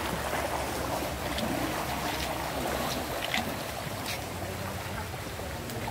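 Steady rush of flowing river water, with a few faint sharp ticks.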